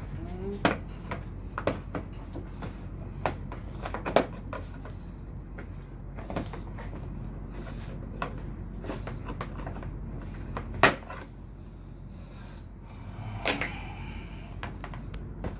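Plastic scooter body panels being pulled and worked loose by hand: a scattered run of short plastic clicks and knocks, the loudest about 11 seconds in, with another near 13 seconds.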